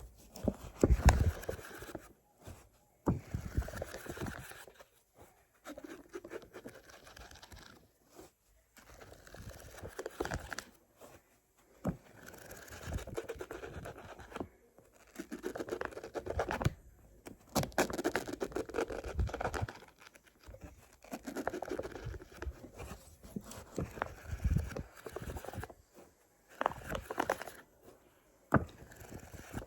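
Fingers tapping and scratching on a book: irregular taps mixed with scratchy rubbing, in spells of a few seconds with brief pauses between them.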